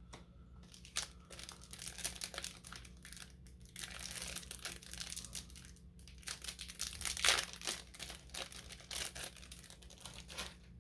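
Plastic packaging crinkling in irregular bursts as it is handled and pulled open, loudest about seven seconds in.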